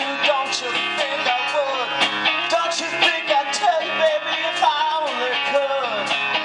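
Live rock band playing: an electric guitar lead with bent, sliding notes over drums and bass, the drums striking about twice a second.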